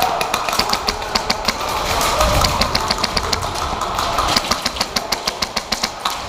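Airsoft electric gun firing on full auto in repeated bursts, a rapid mechanical clatter of about eight shots a second with short pauses between runs.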